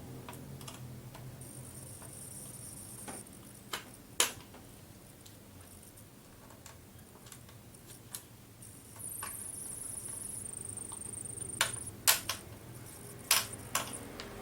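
Sharp clicks and taps of a screwdriver and small screws against a laptop's plastic case during reassembly, scattered and irregular, with a cluster of louder clicks near the end. A faint high-pitched whine comes and goes twice.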